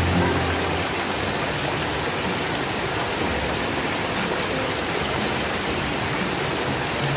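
Water running in a small ditch, a steady rushing hiss.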